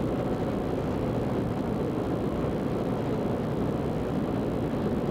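Zenith CH 750 Cruzer light aircraft in flight: a steady drone of engine, propeller and rushing air.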